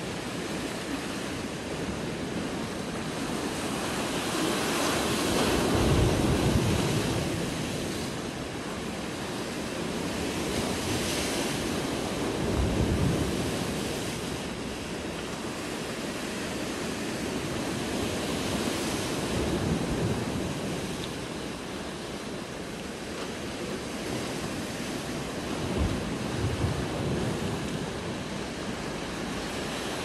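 Rough sea surf breaking on rocks and a concrete seawall, a steady wash that swells into a louder crash about every six or seven seconds, with wind buffeting the microphone.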